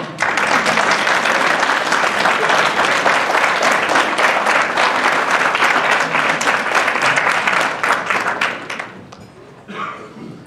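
A room of guests applauding, a loud steady clatter of many hands clapping that starts at once and dies away about nine seconds in.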